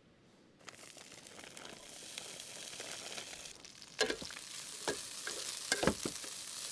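Hash browns sizzling in hot olive oil in a frying pan. The sizzle starts suddenly about half a second in and holds, with a few sharp knocks and clatters of a utensil on the pan from about four seconds in.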